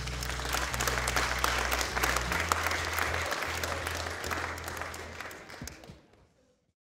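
Audience applauding, a dense patter of clapping over low bass notes of background music; it fades out about six seconds in.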